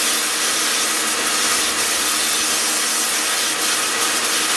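Kärcher electric pressure washer spraying a hard water jet onto a dirt bike through a homemade jet, a drilled M5 bolt screwed into the hose end. A loud, steady hiss with a faint steady hum underneath.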